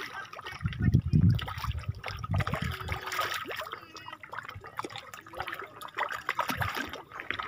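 Small splashes and dribbling water at a pond's surface as fish take feed scattered by hand, many short splashes one after another. A few low thumps come in the first three seconds.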